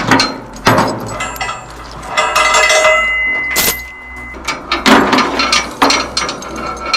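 Repeated metal clanks and rattles, with a steady high squeal lasting about two seconds in the middle.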